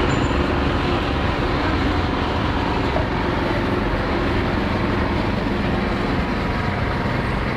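Steady, loud street noise with a low rumble, traffic-like and unbroken, with no single event standing out.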